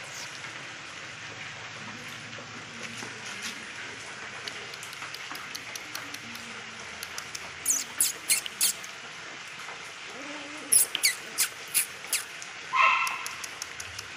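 Lhasa apso puppies, about 40 days old, giving one short high yip near the end. Two clusters of quick, sharp high ticks or squeaks come a few seconds apart in the middle.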